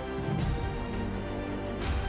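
Background music with soft, sustained chords and a brief noisy accent near the end.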